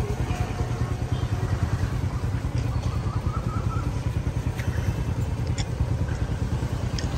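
Motorcycle engine idling with a steady low rumble, with a few faint clicks over it.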